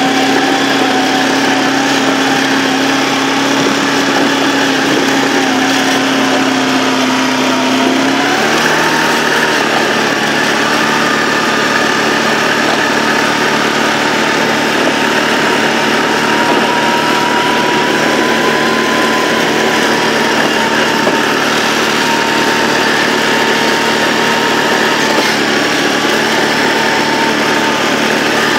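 2004 Polaris Sportsman 600 ATV's twin-cylinder engine running steadily under load while pushing a snow plow. About eight seconds in its pitch steps up as the engine speeds up, then holds steady.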